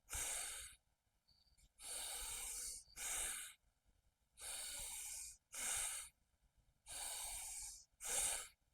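Bhastrika pranayama: deep, forceful breaths in and out. A longer breath and a shorter, sharper one alternate about every two and a half seconds, seven breaths in all.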